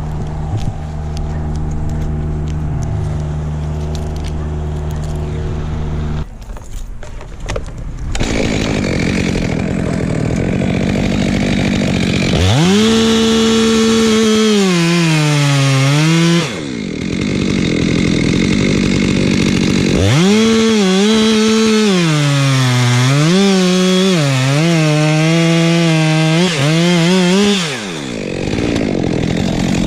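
Chainsaw cutting through pine in two long cuts, its engine note sagging as the chain bites into the wood and climbing again as it frees, and revving up once more near the end. Before the cuts, a steadier, lower engine hum runs for about six seconds.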